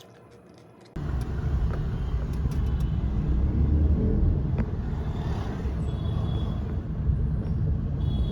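Loud, low rumble of a moving vehicle's road noise, starting abruptly about a second in and continuing steadily.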